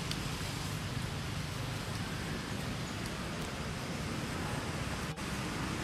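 Steady outdoor background noise, an even rushing hiss over a low hum, with a few faint ticks and a brief dropout about five seconds in.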